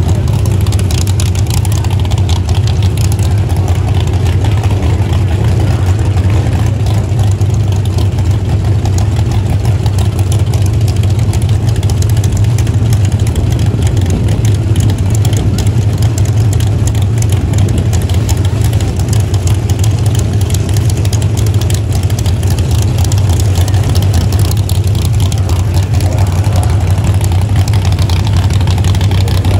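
1955 Chevrolet drag car's race engine idling loudly and steadily with a rough, rapid pulse.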